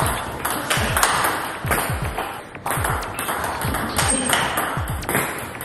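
Table tennis ball in a fast rally: sharp clicks of the ball off the rackets alternating with its bounces on the table, about two to three a second, each with a short low thud from the table.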